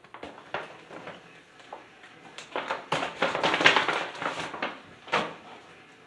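Crackling and rustling of a chocolate box and its wrapper being handled and opened: scattered clicks, then a dense run of crinkling around the middle.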